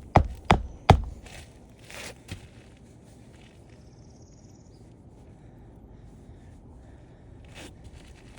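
Hammer driving a roofing nail into an asphalt shingle: four quick, sharp blows in the first second, then quiet.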